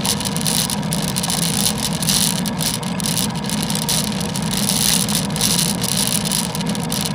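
Steady rushing road and wind noise of a bicycle ridden on a wet road, heard through an action camera's microphone, with a hiss that swells and fades.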